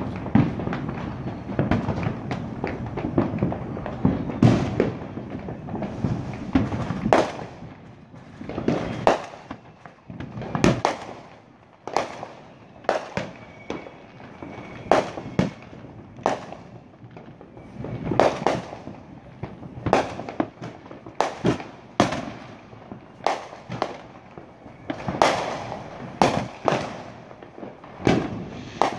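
Aerial fireworks shells bursting. For the first several seconds there is a rapid, overlapping string of bangs, then separate bangs about once a second for the rest of the time.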